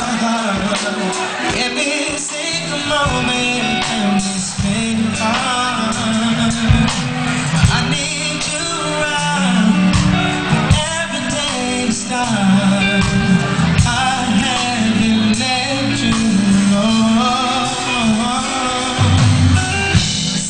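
Male R&B singer singing live into a microphone over a band, with sustained low notes and a steady drum beat underneath.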